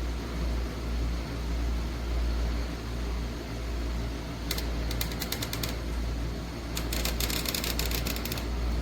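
An electric fan running steadily with a low hum and a rush of air, with two stretches of rapid clicking, one about halfway through and one near the end.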